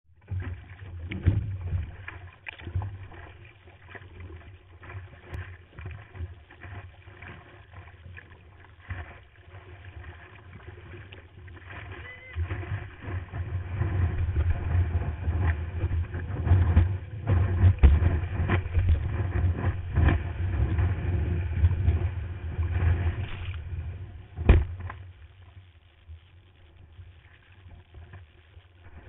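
Sea water splashing and sloshing against a camera at the surface while surfing, with irregular knocks and buffeting. The splashing is busiest and loudest through the middle, with one sharp knock a few seconds before the end.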